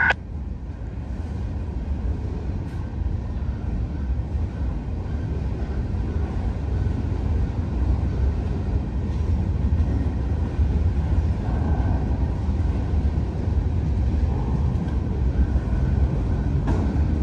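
Freight train of open-top gondola cars rolling past, a steady low rumble of steel wheels on the rails.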